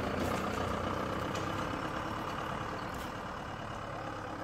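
Tata Sumo Gold SUV's diesel engine running as it pulls away on a gravel road, the sound slowly fading as it drives off.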